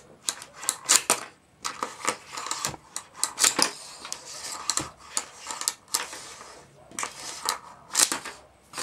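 Retractable 3.5 mm audio cable being handled: a dozen or so irregular sharp clicks and rattles with short rustles between them.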